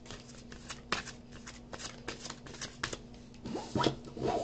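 A deck of tarot cards being shuffled by hand: a quick, uneven patter of card clicks, with a few louder strokes near the end.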